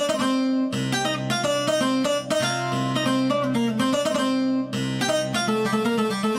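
Sampled Middle Eastern plucked string instrument from a virtual-instrument library, playing a quick melody of short plucked notes over held low notes.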